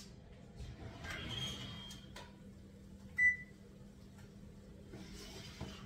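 A single short, high electronic beep from a wall oven's control panel about three seconds in, over a faint steady hum and soft handling noise as the oven is opened.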